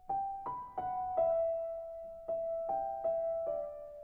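Background music: a slow piano melody of about eight single notes, each struck and left to ring away.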